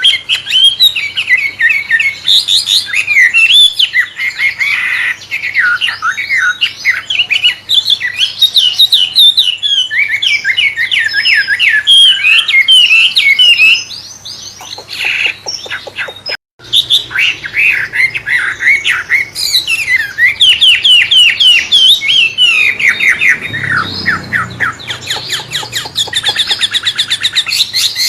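Wambe bird singing a long, fast, varied song of rapid sweeping whistles and chattering trills, in a style like a magpie-robin's (murai). The song is used as a lure and master song for training other songbirds. It thins out and breaks off briefly about halfway, then resumes.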